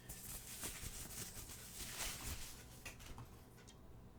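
Faint rustling and light clicks from small plastic tripod parts and their packaging being handled.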